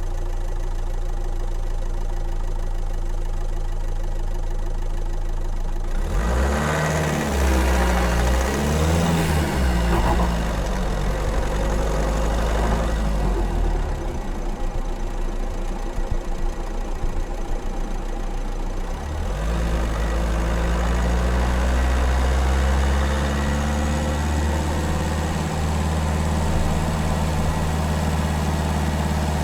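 Car engine and exhaust idling steadily, then revved up and down several times starting about six seconds in, with a rougher, noisier stretch after the revs. It settles back to a steady idle about two-thirds of the way through.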